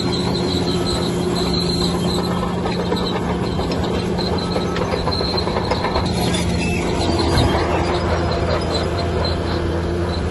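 Bulldozer running steadily, its diesel engine humming low while the steel tracks give a high squeal that comes and goes over a constant clatter.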